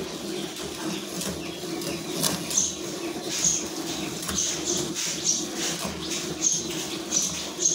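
Milk squirting from a cow's teats into a metal pail of frothy milk during hand milking: short hissing squirts, about one or two a second.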